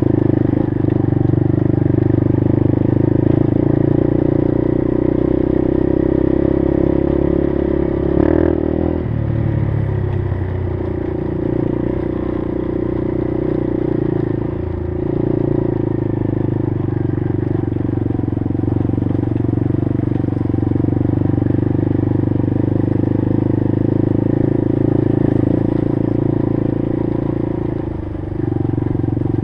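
Engine of an off-road vehicle running steadily under throttle on a dirt trail. It eases off about eight seconds in with a falling pitch, then picks back up, with short dips again near the middle and near the end.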